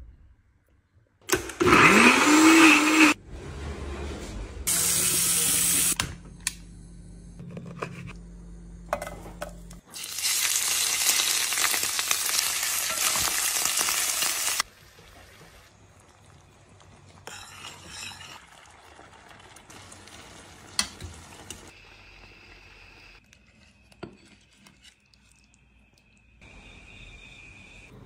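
Kitchen cooking sounds in short cuts: a brief whir rising in pitch near the start, then several seconds of loud sizzling as small squid fry in oil in a steel pan, which stops suddenly at a cut, followed by quieter clinks and handling noise.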